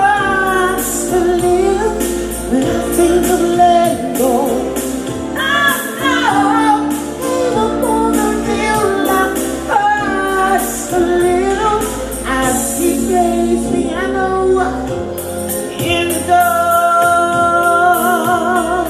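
Female vocalist singing live over a band backing. Near the end she holds a long note with vibrato.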